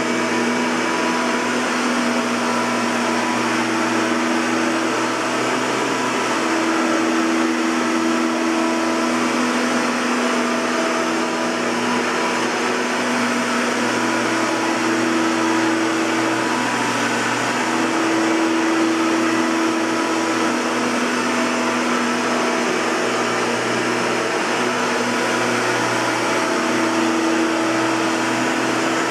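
Hoover Caddy Vac Elite (U5131-900) bagged upright vacuum cleaner running steadily, a rushing airflow over a motor hum whose pitch wavers slightly now and then.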